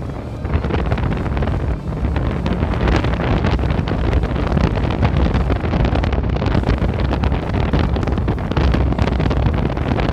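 Wind buffeting the helmet camera's microphone while riding a Suzuki V-Strom 650 XT motorcycle, with the bike's engine and road noise underneath. The noise grows louder over the first two seconds, then holds steady.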